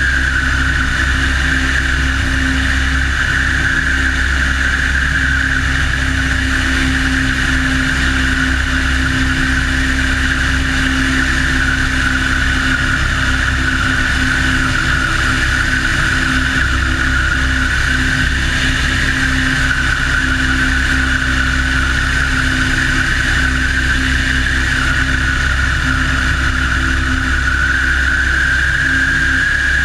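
de Havilland Tiger Moth's four-cylinder inverted inline engine and propeller running steadily in cruise, with wind rushing over the wing-mounted camera's microphone. The drone holds level, wavering only slightly in pitch.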